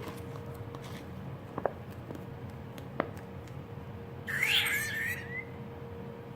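A near-empty squeeze bottle of peel-off face mask being squeezed: a couple of light clicks, then a short squeaky, squelching spurt about four seconds in as the last of the contents and air are forced out.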